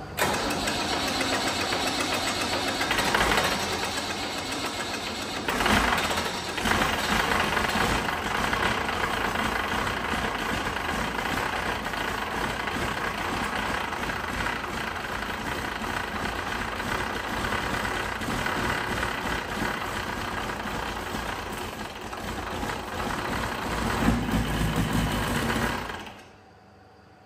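Leyland 285 tractor's turbocharged six-cylinder diesel engine cranking and running on ether, with louder surges about 3, 6 and 24 seconds in, then stopping suddenly near the end. It runs only on the ether and not on its own diesel, with the injection timing still to be checked.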